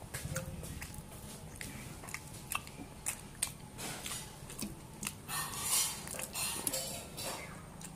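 Close-miked eating sounds of rice and dal eaten by hand: wet chewing, lip smacks and squelches of the fingers mixing rice on the metal plate, as irregular clicks and smacks over a low steady hum.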